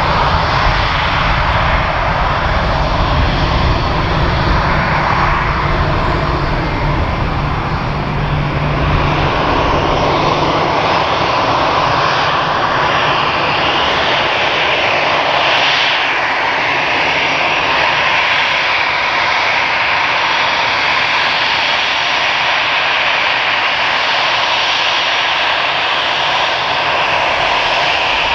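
Airbus A318 airliner's twin turbofan engines running, loud and steady, with a dense jet rush and whine. A deep rumble fades out about ten seconds in, leaving the higher rush and whine.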